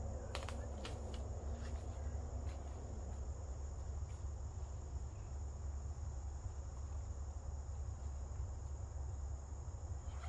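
Steady, high-pitched insect chorus trilling without a break, over a steady low rumble, with a few light clicks in the first second.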